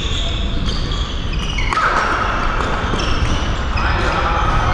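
Badminton rally: repeated racket hits on the shuttlecock, with court shoes squeaking on the floor about two seconds in and again near the end, over steady hall noise.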